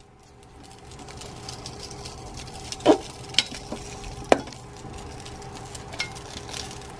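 Dumplings frying in an electric cooker's pot with a low steady sizzle, as a spoon stirs them and clinks against the pot a few times, most sharply about three and four seconds in.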